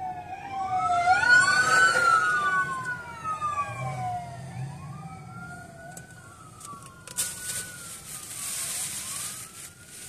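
Emergency vehicle sirens wailing. In the first few seconds two overlap, one sliding down in pitch as another climbs. After that a single siren rises and falls slowly, about once every three seconds.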